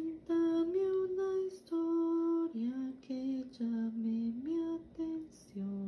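A woman singing a slow, unaccompanied melody, holding long notes with short pauses between phrases.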